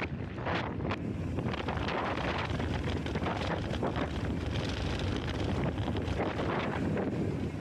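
Wind rushing over the microphone of a mountain biker's action camera, with the bike's tyres rolling over a dry dirt trail and a constant scatter of small rattles and knocks.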